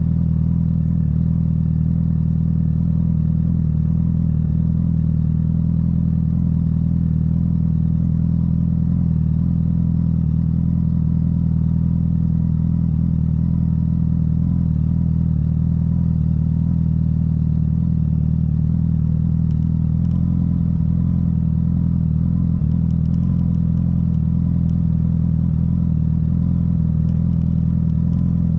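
Honda CBR1000RR's inline-four engine running at a steady pitch through its Yoshimura exhaust.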